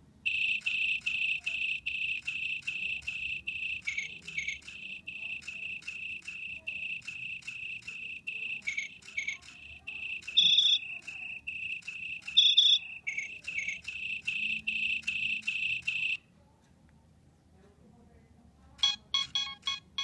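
Nokia 3586 mobile phone playing a built-in ringtone: a fast, even run of high electronic beeps, mostly on one pitch, with two louder higher notes about halfway through. It stops about four seconds before the end, and another ringtone with several pitches starts just before the end.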